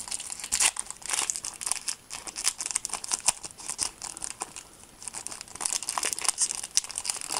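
Foil wrapper of a Panini Adrenalyn XL trading-card booster pack being torn open and crumpled by hand: irregular crinkling and crackling, with a brief lull about halfway through.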